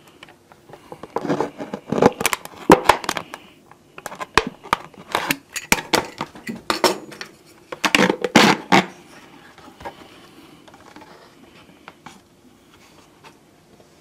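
Clear plastic pop bottle and wooden spoons being handled: a run of sharp clicks, crackles and knocks from the plastic and wood for the first nine seconds or so, then quieter, scattered handling noise.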